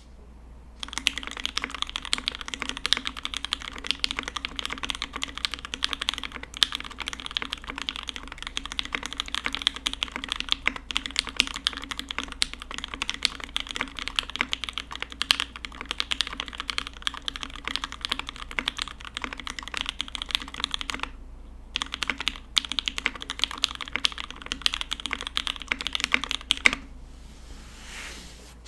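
Fast continuous typing on a Key65 aluminium gasket-mount mechanical keyboard with lubed and filmed H1 switches on 65 g springs, an aluminium plate and GMK keycaps, keystrokes clicking in a dense stream. The typing breaks off briefly about three-quarters of the way through, resumes, and stops a couple of seconds before the end.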